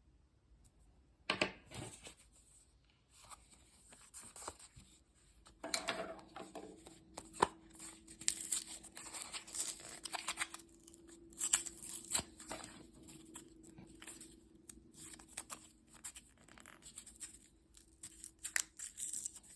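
Stiff plastic packaging of a new CR2450 coin-cell battery being crinkled, pulled and torn at while it is worked open, with many sharp clicks and crackles.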